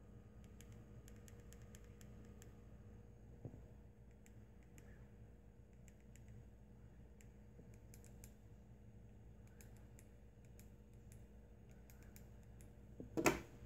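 Faint steady low hum with scattered light clicks, then one sharp, loud click just before the end.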